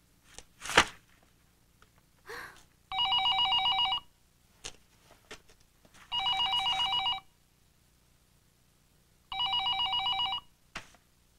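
A telephone ringing with a trilling electronic ring, three rings of about a second each, spaced about three seconds apart. About a second in there is a sharp smack, the loudest sound, followed by a few light clicks and rustles.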